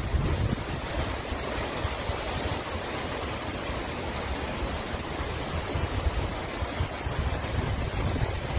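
Storm wind buffeting the microphone as an uneven low rumble, over a steady rushing hiss.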